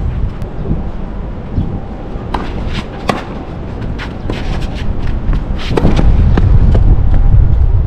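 Tennis rally: sharp knocks of racket strings striking the ball, several in quick succession, with shoe scuffs on an artificial-grass court. In the last two seconds a loud low rumble of wind on the microphone rises over them.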